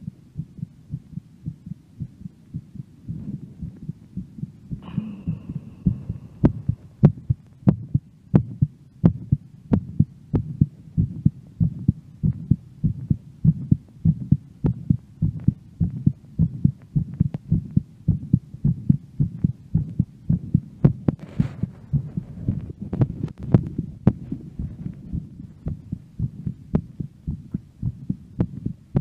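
A woman's heartbeat after a workout, picked up close to the chest: fast, regular low thumps, about two a second, growing louder about four seconds in. A brief high tone sounds about five seconds in, and a short hiss about twenty-one seconds in.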